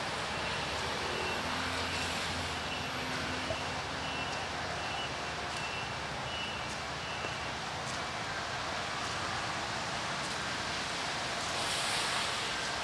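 Rain and wet-street traffic: a steady hiss with a low engine hum early on and tyres swishing on wet pavement swelling near the end. Faint short beeps repeat in the first half.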